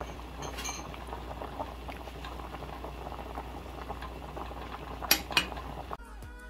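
Pot of beef soup at a hard rolling boil, bubbling and popping steadily. About five seconds in come two sharp metal clinks, a ladle against the pot. Music takes over near the end.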